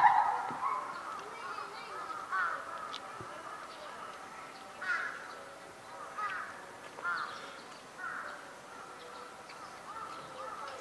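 A bird calling over and over, short calls a second or two apart, loudest at the very start where a quicker run of calls is just ending.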